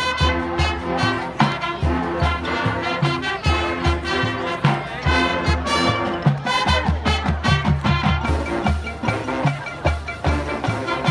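High school marching band playing: brass chords over a steady pulse of bass drums and snare strokes.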